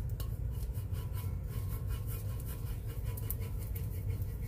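Small plastic scraper rubbing over star decals on a tumbler, pressing them down in repeated short scraping strokes to burnish them flat.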